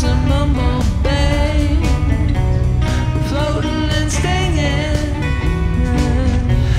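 Background music: a sung country-style song with guitar and a steady beat.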